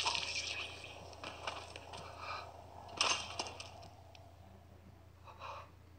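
Horror film soundtrack playing back: a wet, liquid gore sound effect that starts loud and dies away, with a sharp click about three seconds in.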